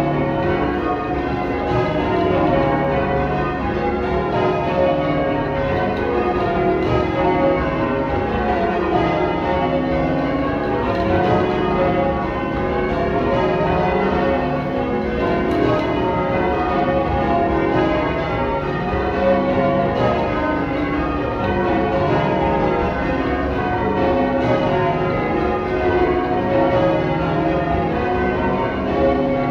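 Change ringing on a ring of twelve church bells, tenor 28-2-16 cwt in C#. The bells strike one after another in a continuous, overlapping stream of ringing tones.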